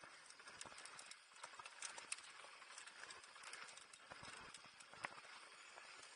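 Faint hiss of mountain bike tyres rolling fast over a loose dirt trail, with many small scattered clicks and rattles.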